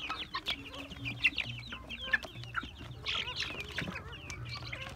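A flock of young black chickens peeping and clucking without pause as they feed, many short high calls overlapping, with scattered sharp taps of beaks pecking at a plastic feeder tray.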